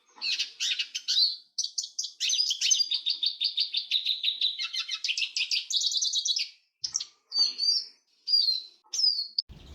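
A small songbird singing a long, fast twittering song of rapid trills, then breaking off into four short separate calls near the end.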